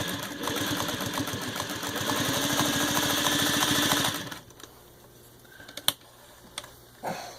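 Singer 301A sewing machine with a rebuilt motor, stitching through six layers of denim under foot-pedal control. It runs faster and louder from about two seconds in, then stops just past four seconds. A few light clicks follow.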